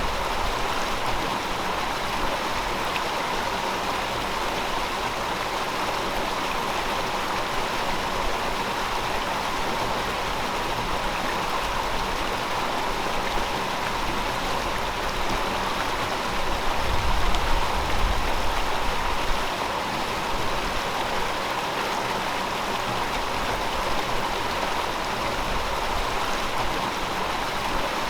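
River water flowing steadily, an even, continuous rushing. A deeper low rumble swells briefly about two-thirds of the way through.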